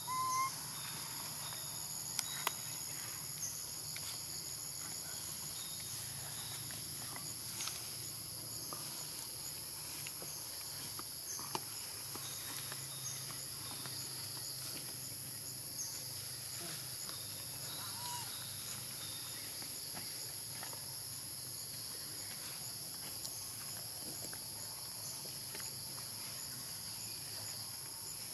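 Steady, even chorus of insects, shrill and unbroken, with scattered light clicks and a couple of short chirps, one just after the start and one about eighteen seconds in.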